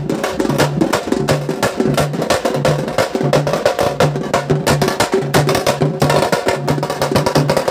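Loud, fast percussion-heavy dance music: dense rapid drum strokes over a short low bass figure that repeats about every two-thirds of a second.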